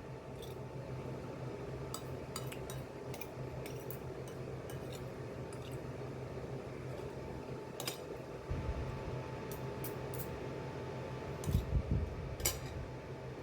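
Kitchen dishes and utensils clinking now and then, a few sharp clinks and some dull knocks, over a steady low hum.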